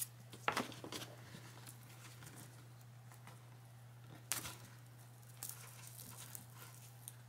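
Faint rustling and crinkling of a satin ribbon and a paper shopping bag as fingers work at a knot in the ribbon, with a few soft ticks about half a second in and again just past four seconds.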